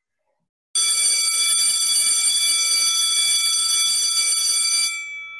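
Electric bell ringing steadily for about four seconds, starting under a second in, then stopping, its gong ringing on briefly as it fades.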